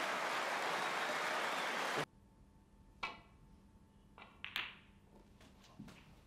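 Audience applauding, cut off abruptly about two seconds in. Then a quiet table with a few sharp clicks of snooker balls being struck, two of them loud.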